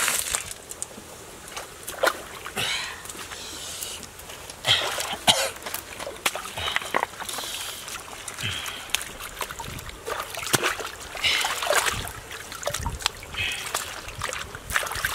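Shallow stream water splashing and trickling irregularly as hands swish and scrub raw squid in a wicker basket set in the water.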